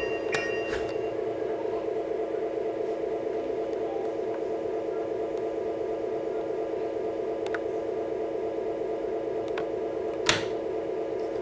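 HO scale Amtrak E60CP model locomotive's MRC Symphony 77 sound unit playing a steady electric-locomotive hum through the model's small speaker, with a few faint clicks and one sharper click near the end.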